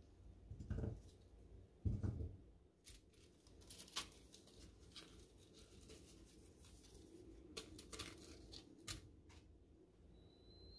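Quiet kitchen food-prep handling sounds: two soft thumps in the first couple of seconds, then scattered sharp clicks and light knocks.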